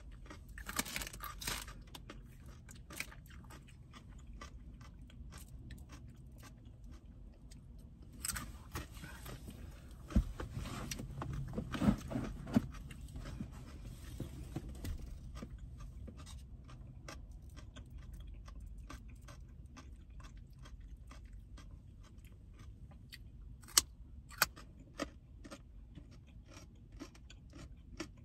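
Close-up chewing and crunching of raw baby carrots, with many small crisp clicks. A louder stretch of handling noise comes in the middle, and two sharp clicks near the end.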